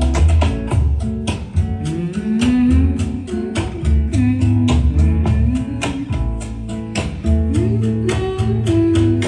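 Audio Phonic Hydra-1 bookshelf speaker with a 6.5-inch driver playing a pop song at a loud level: an instrumental passage of guitar, pulsing bass and a steady drum beat, without vocals.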